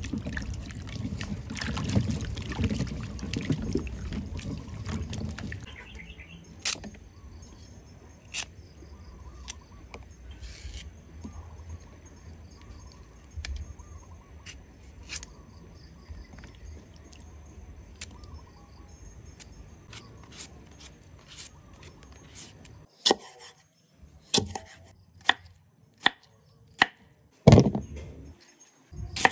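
Hands splashing and rubbing fruit and vegetables in a basin of water, then a quieter stretch of dripping and faint handling clicks. Near the end comes a run of sharp knocks, about a second apart: a knife chopping through produce onto a cutting board.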